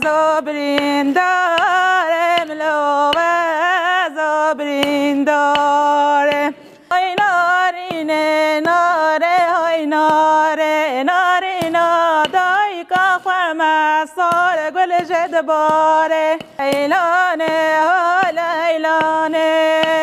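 A single voice singing an ornamented, wavering melody without accompaniment, in long held phrases with a short break about seven seconds in.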